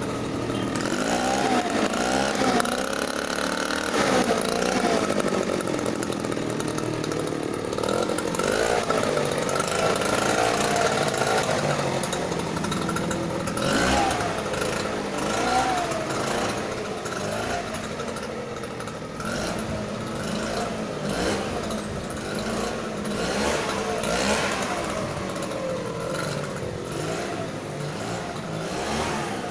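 Small petrol engine running and revving up and down repeatedly, over and over.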